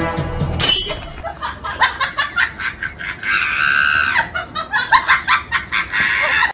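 People laughing in quick short bursts, with a sudden high-pitched shriek just under a second in and a held high squeal a little after three seconds.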